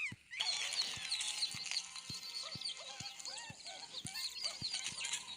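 Many high, chirping animal-like calls overlapping, over a regular knocking about twice a second; a scream cuts off at the very start.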